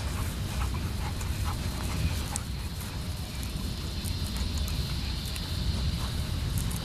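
Wind rumbling on the microphone outdoors, with scattered faint small clicks and ticks.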